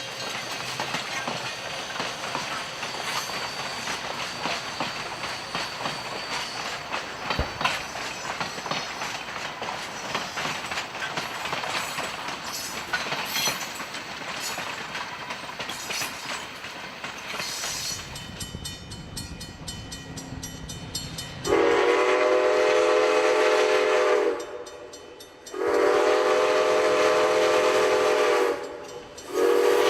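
Steam locomotive #7470 and its train rolling past, with the wheels clicking over rail joints. The steam whistle then sounds two long blasts and one short, the opening of the grade-crossing signal.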